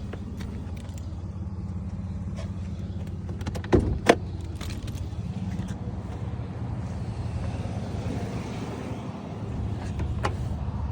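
Ford F-150 engine running steadily with a low drone, with two sharp clicks about four seconds in and another near the end.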